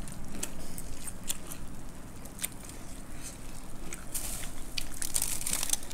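People eating by hand: scattered crisp crackles and clicks of puffed rice (muri) and fried snacks being handled and chewed.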